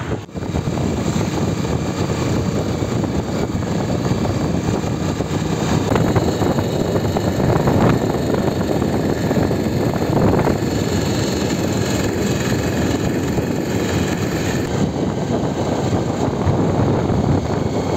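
Motorbike ridden at road speed: steady rushing wind over the microphone mixed with the bike's engine and road noise.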